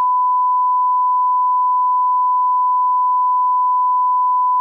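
A continuous electronic beep: one pure, unwavering tone held at a steady loudness, with no other sound beneath it.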